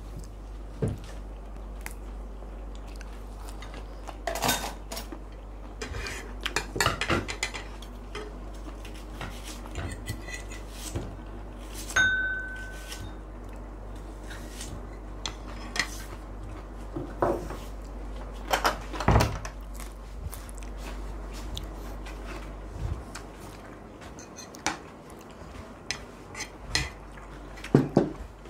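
Spoon and fork clinking and scraping against plates while someone eats: irregular light clicks and knocks, with one clink about twelve seconds in that rings briefly.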